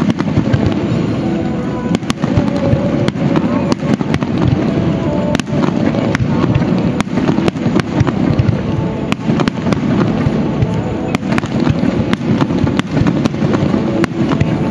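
Fireworks display: aerial shells bursting in a rapid, continuous run of bangs and crackling, several reports a second, with music playing underneath.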